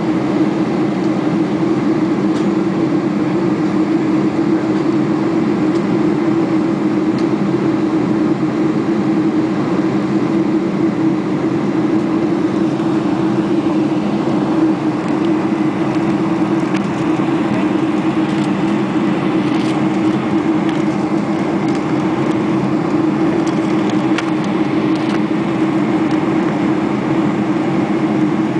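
Steady cabin drone of a Boeing 747-400 airliner, heard from inside the cabin at a window seat: engine and airflow noise with a constant low hum, unchanging in level.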